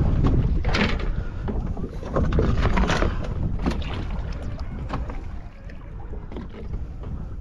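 Wind buffeting the microphone with a low rumble, louder in the first three seconds, and water slapping and splashing irregularly against a small boat's hull.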